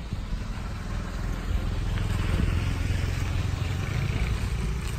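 A low rumble that swells about a second and a half in and eases near the end.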